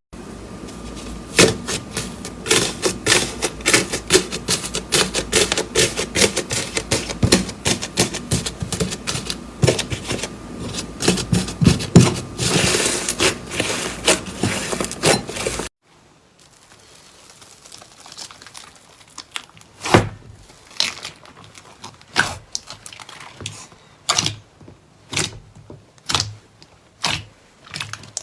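Slime being worked, making a dense run of small sticky clicks and crackles. It cuts off abruptly about two-thirds of the way through. After that come sparser single pops and clicks, about one a second.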